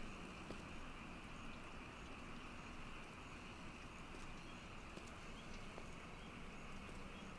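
Quiet, steady night-time ambience with a few faint, irregular footsteps on wet ground.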